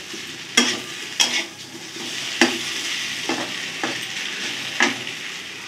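Bitter gourd slices sizzling as they fry in oil and masala in a metal kadhai, with a spatula scraping and knocking against the pan about six times.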